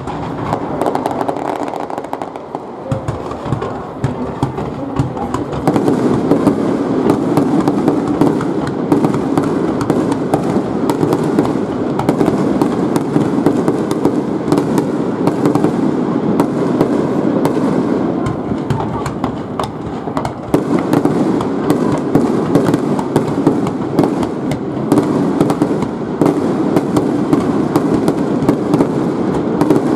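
Aerial firework shells bursting in a rapid finale barrage: bangs and crackles so close together they merge into a continuous rumble. The barrage is sparser at first and turns denser and louder about six seconds in.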